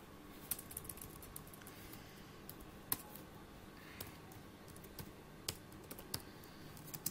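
Faint, sparse keystrokes and clicks on a computer keyboard and mouse, a single click every second or so, irregularly spaced.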